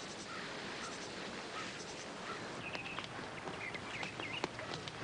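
Outdoor ambience: a steady background hiss with small birds chirping in the second half and a few footsteps.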